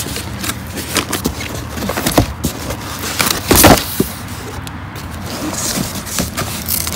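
Paperboard snack-cake boxes being handled and shifted inside a corrugated cardboard case: scraping, rustling and light knocks, loudest about three and a half seconds in.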